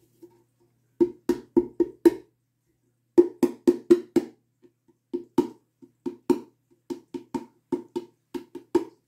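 Fingers drumming on a hollow vinyl model-kit body casting: runs of quick knocks at about four a second, each ringing at the same pitch, with two short pauses before a longer steady run.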